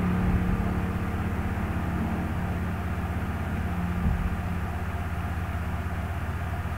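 A steady low mechanical hum or drone with no speech, holding level throughout.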